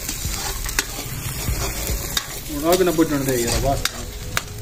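Steel ladle stirring and scraping through onions with ginger and garlic frying in a steel karahi over a wood fire: a steady sizzle with sharp clicks of the ladle against the pan. A short voice is heard about halfway through.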